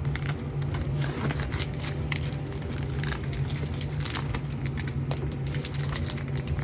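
Protective plastic wrap being peeled and crumpled off a new washing machine: irregular crinkling and crackling, over a steady low hum.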